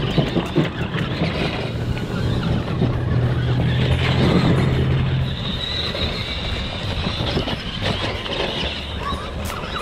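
Tamiya Super Clod Buster RC monster truck driving over rubble and loose dirt: electric motor and gear whine mixed with tyre and chassis noise, with scattered knocks.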